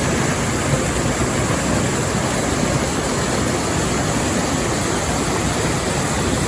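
Steady, even rush of fast-flowing river water in a mountain gorge.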